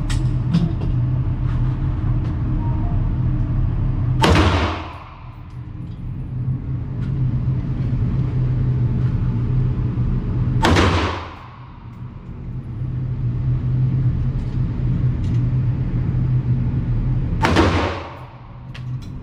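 Ruger AR-556 MPR AR-15 rifle firing single aimed shots of .223: three sharp cracks about six and a half seconds apart, each ringing out in the indoor range. A steady low hum fills the gaps between shots.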